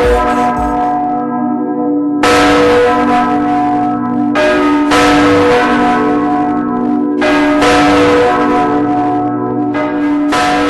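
Church-style bells ringing, struck about every two to three seconds, sometimes twice in quick succession, each strike ringing on in several steady tones. A deep bass beat stops about a second in.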